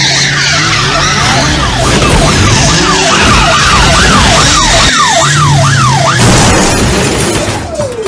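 Police siren sweeping up and down, its sweeps speeding up into a rapid yelp, then cutting off about six seconds in. It sits over loud rushing noise and a low steady engine drone. A slower, lower wail starts just before the end.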